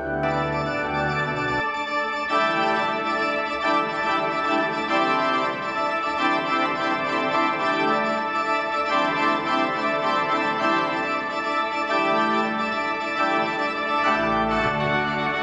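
Pipe organ playing full sustained chords. Its low bass notes drop out after about a second and a half and come back near the end.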